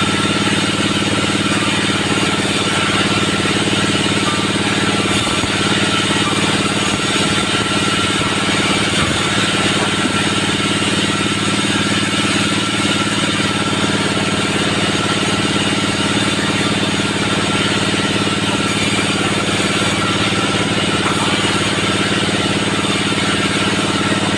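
Band sawmill running with a steady, unchanging mechanical hum.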